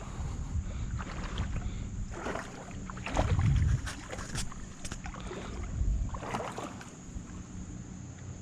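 Canoe paddle strokes in river water: separate splashing swishes every second or two, one heavier, with a few sharp knocks in between.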